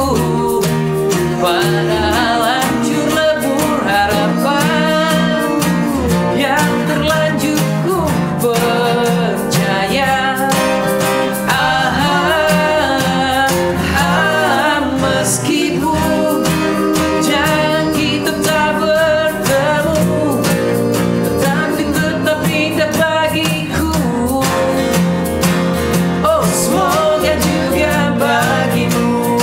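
Three acoustic guitars strummed together under a male lead voice singing a pop song, with other male voices joining in harmony.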